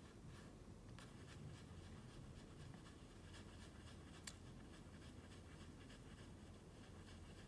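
Near silence: room tone with a faint steady low hum and a few faint clicks, the clearest about a second in and a little after four seconds in.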